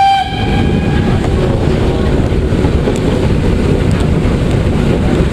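The end of a steam whistle blast from the PKP Ol49 steam locomotive, a steady tone that cuts off just after the start and dies away within about a second. Then wind buffeting the microphone over the steady running of the locomotive.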